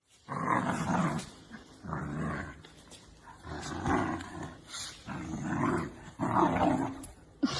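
A dog growling in a string of about six growls, each lasting about a second, with short gaps between them.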